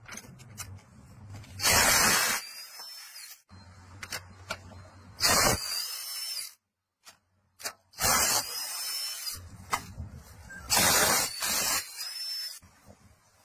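Cordless impact wrench hammering on nuts and bolts in four short, loud bursts about three seconds apart, with quieter stretches between.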